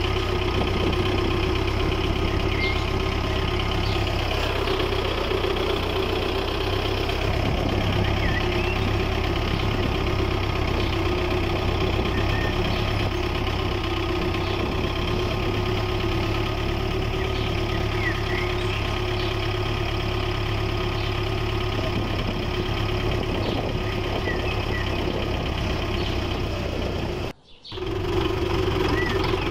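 Small motor of a homemade model tractor running steadily with an even engine-like hum as it pulls a spiked harrow through sand. The sound cuts out for a moment near the end and then resumes.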